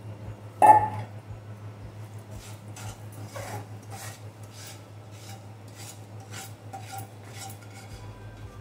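Wooden spatula scraping roasted besan (gram flour) out of a metal frying pan onto a steel plate: one louder knock of the pan near the start, then a steady run of short scrapes, a few a second.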